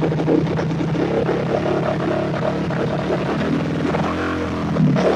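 Engine running steadily at a low speed with an uneven pulsing beat, typical of the misfire the owner is trying to resolve.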